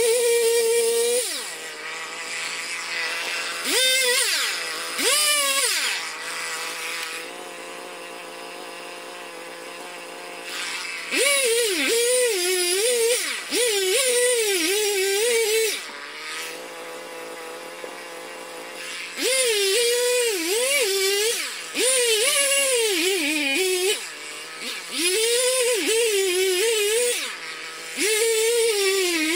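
Husqvarna 55 two-stroke chainsaw cutting birch logs to length: it goes to full throttle for cuts of a few seconds each, its pitch sagging and wavering under load. Between cuts it drops back to a steady idle, about six cuts in all.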